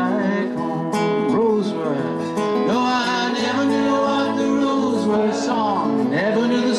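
A man singing a folk song, with long held and gliding notes, to his own strummed acoustic guitar.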